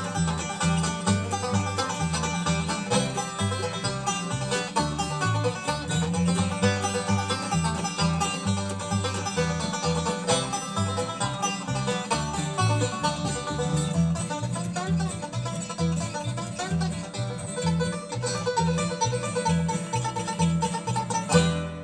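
Bluegrass band playing an instrumental passage, plucked strings over a steady bass line, with no singing. It ends on a final chord just before the end.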